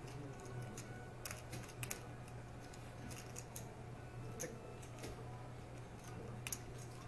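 Poker chips clicking against each other in scattered, irregular clacks, over a steady low room hum.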